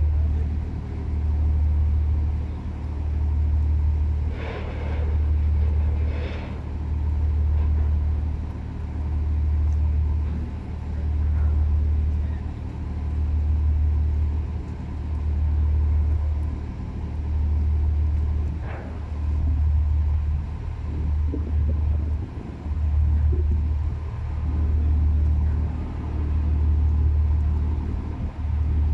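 Low rumble of ship engine machinery, swelling and fading in a slow, even beat about once every second and a bit.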